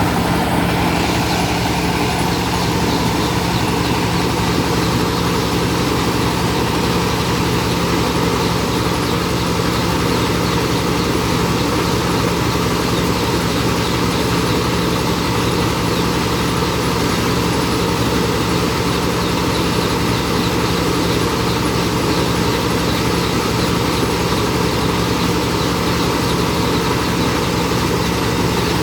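Rice milling machine running steadily: a constant mechanical din with a strong low hum, unchanging throughout.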